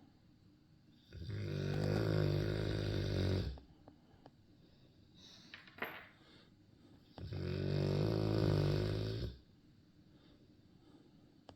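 Snoring: two long, loud snores about six seconds apart, each lasting about two and a half seconds.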